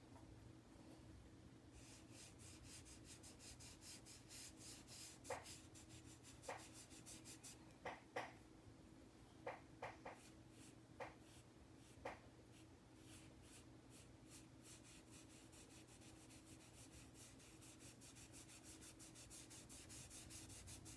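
Faint rubbing of a PanPastel sponge applicator across drawing paper in quick, repeated strokes, laying down pastel colour. A handful of short, light ticks come in the middle stretch.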